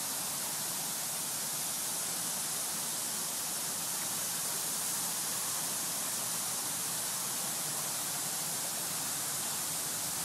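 Large multi-jet fountain running, its tall water jets spraying and falling into the basin: a steady, even rushing hiss.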